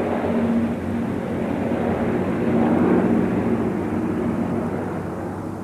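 A formation of old propeller-driven aircraft flying over, their engines making a steady drone that swells about halfway through and then fades away.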